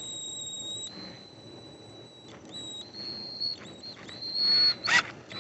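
Power drill running with a high, steady whine that shifts pitch as the trigger is eased and squeezed, drilling a pilot hole into the kayak's hull; near the end the whine gets louder and a little higher, followed by a couple of short rasping bursts.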